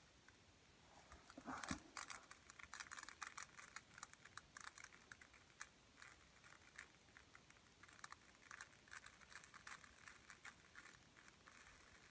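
Grains of rice dropped onto a surface as a home-made rain sound effect: a faint patter of many tiny clicks. It starts about a second in, is thickest over the next few seconds, and thins out toward the end.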